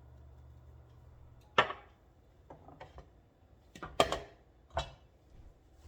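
Sharp knocks and clacks from kitchen utensils and containers being handled at the counter, over a faint low hum. The loudest are about a second and a half in and about four seconds in, with a few lighter taps between.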